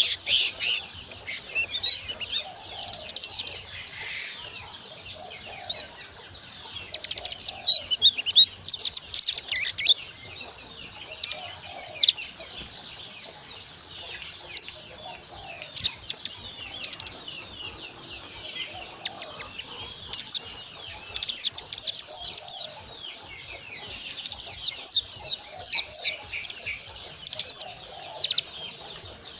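A young sunbird (sogon) singing in bursts of high, thin, rapid chirps and twitters, a phrase of a second or two at a time with short pauses between: a juvenile bird practising its song.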